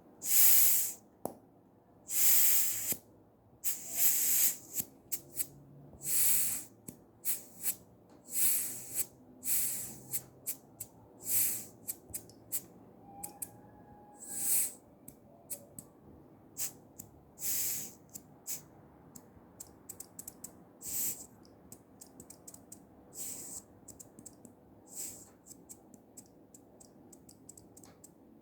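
Air hissing out of a mountain-bike air-oil rear shock's air valve in repeated short bursts as the valve is pressed again and again to empty the air chamber. The bursts are longest and loudest at first and grow shorter and fainter toward the end, with small clicks between them.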